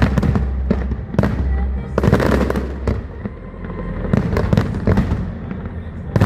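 Aerial fireworks bursting in a rapid string of sharp bangs and crackles, bunched most densely about two seconds in, with music playing underneath.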